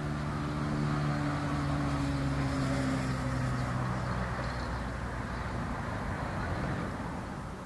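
A passing vehicle's engine, a steady hum that drifts slightly lower in pitch and fades away after about four seconds, leaving a fainter rumble of traffic noise.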